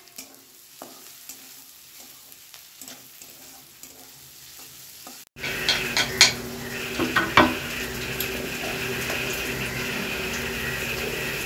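Sliced vegetables sizzling as they stir-fry in a wok, with a metal spatula scraping and tapping against the pan. The sizzle is faint at first and grows louder and steadier about five seconds in, with a few sharp scrapes soon after.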